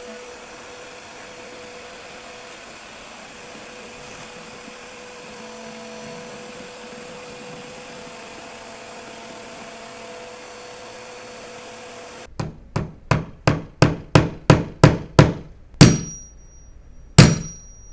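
Steady hiss with a faint hum for about twelve seconds, then a hammer driving a nail into trim: a quick run of light taps growing louder, followed by two hard blows with a brief metallic ring.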